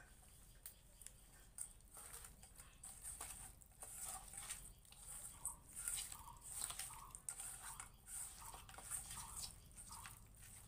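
A hand squeezing and turning raw duck pieces coated in mustard oil and spice powders in a stainless steel bowl: faint, irregular wet squelching with sharp clicks now and then, busier from about two seconds in.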